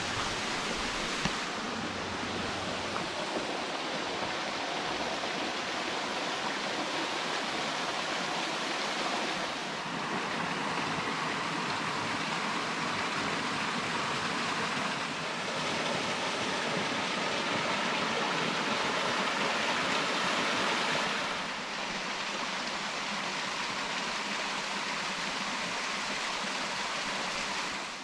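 Steady rush of a waterfall on a creek, a continuous hiss of falling water. Its loudness steps up and down slightly a few times.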